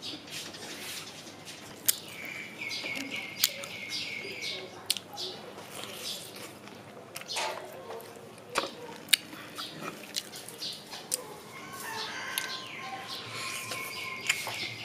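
Crunching and chewing of a crispy fried chicken drumstick, with several sharp crunches. A bird sings in the background with high, held notes about two seconds in and again near the end.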